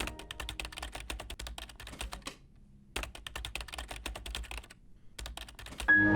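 Typing on a computer keyboard: rapid runs of key clicks in three bursts, with two short pauses.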